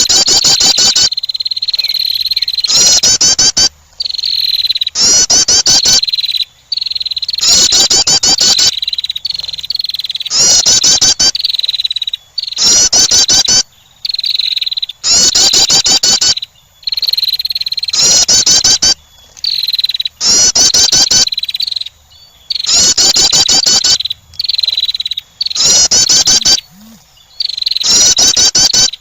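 Female wren call repeated over and over: rapid, buzzy chattering trills of about a second each, coming roughly every two seconds, with a thin high whistle between them.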